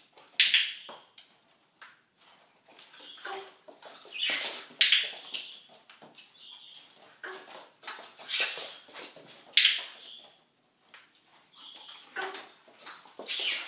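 Puppy whimpering and moving about, with short high hissing sounds every few seconds.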